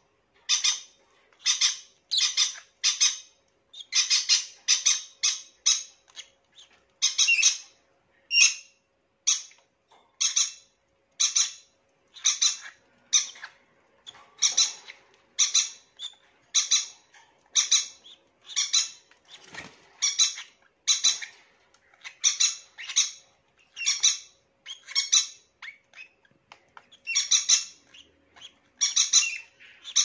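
Peach-faced lovebirds giving short, high-pitched squawking calls over and over, about one or two a second.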